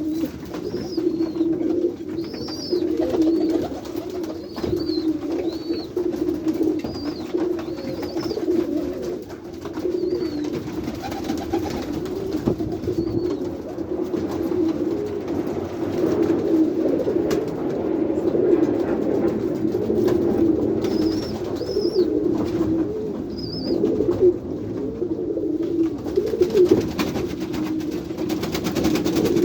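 Many domestic pigeons cooing together in a loft, their overlapping coos forming a continuous wavering murmur. Short high chirps cut through now and then, several in the first few seconds and a few more past the middle.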